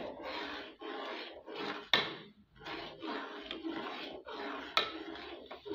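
Steel spoon stirring milk custard in a metal pot, a rhythmic scraping against the pot's bottom and sides. Twice, about two seconds in and near the end, it clinks sharply against the pot.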